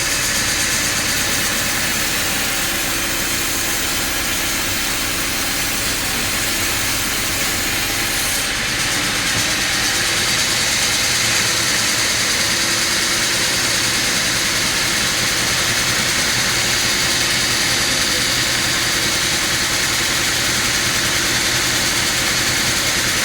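Sawmill saw machinery and its engine running steadily, a continuous mechanical hum under a loud hiss. About eight seconds in the hiss turns brighter and sharper, then carries on evenly.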